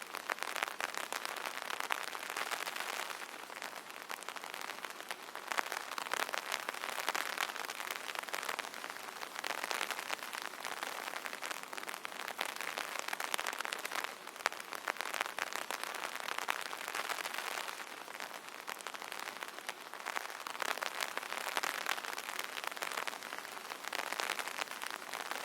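Rain pattering on an umbrella's fabric canopy: a dense, steady patter of drops that swells and eases every few seconds.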